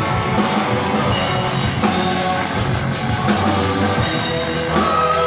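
Rock band music with a steady drum-kit beat under sustained instrument tones.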